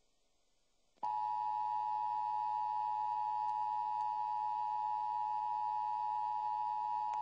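Emergency Alert System attention signal: a steady two-tone alarm starting about a second in, held unbroken after a brief silence. It marks the start of an emergency alert broadcast.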